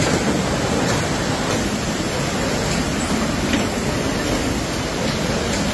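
Steady, loud din of jute sack-making machinery running, with a few faint clicks.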